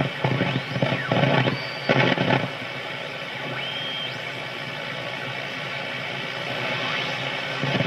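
Philco model 64 tube radio being tuned across the AM band: hissing static with short choppy bursts of station sound and brief whistles during the first two and a half seconds, then a steady hiss between stations.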